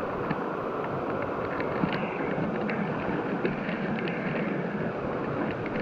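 Mountain stream water flowing over rocks: a steady, even rush of water with a few faint ticks.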